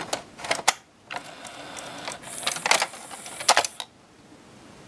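Pioneer 6-disc CD changer mechanism clicking and whirring as it tries to read a disc, in bursts with several sharp clicks, stopping about four seconds in. The owner thinks the pickup is either not getting focus lock or not spinning the disc; its laser pickup is missing its focusing lens.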